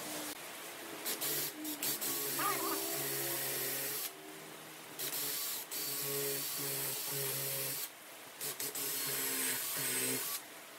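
A power tool working wood, a hiss that stops and starts sharply twice, over background music.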